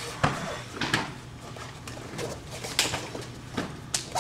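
Sharp hand slaps and gi snaps from a Kenpo form's strikes and blocks, a string of separate cracks with a short echo, the loudest about a quarter second in, at one second and near three seconds.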